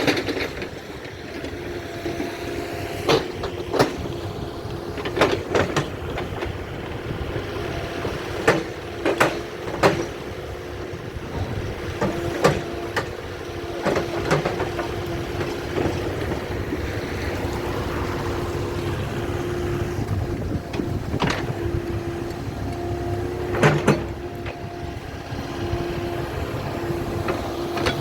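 Construction-site machinery running with a steady hum, with irregular knocks and bangs over it.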